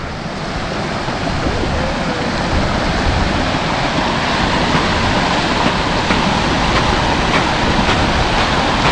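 Snowmelt stream rushing out from under a snow bridge over stones, a steady rush that grows gradually louder as the microphone nears the water.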